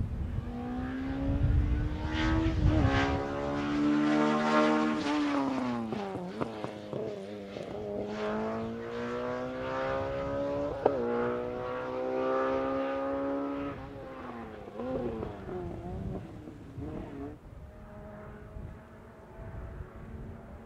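Rally car engine at high revs on a special stage. The pitch climbs, drops steeply about five seconds in, then climbs again, with a sharp crack near the middle. It falls away and fades out in the last few seconds.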